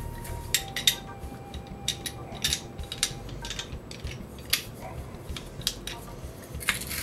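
Hand-held metal garlic press squeezing garlic cloves, its handles and hopper clicking and clacking in irregular sharp taps.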